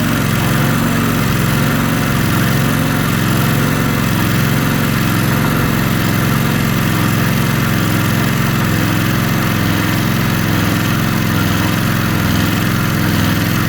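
3 kW petrol generator engine running at a steady speed, a constant hum with no change in pitch or level.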